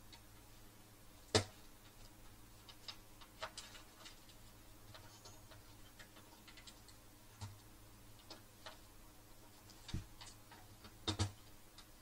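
Irregular small clicks and knocks of hands handling a DVR's circuit board, cable plugs and case parts while putting it back together, the sharpest about a second and a half in and a quick pair near the end, over a faint steady hum.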